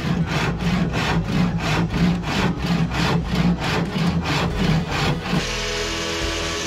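Hand saw cutting a small block of wood with quick, even back-and-forth strokes, about three a second. Near the end the sawing stops and a steady angle grinder with a sanding disc takes over.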